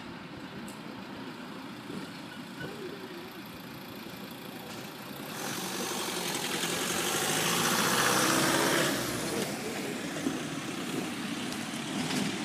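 Car engines running in the background, then a car driving past, its noise building about five seconds in, peaking and fading away about four seconds later.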